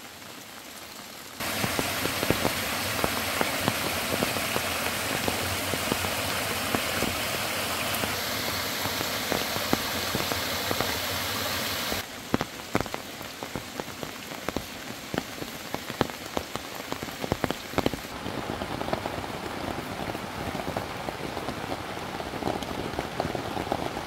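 Steady rain falling on a camping tarp and tent fabric: a continuous hiss with many sharp individual drop hits. Its character changes abruptly a few times as the view moves between surfaces.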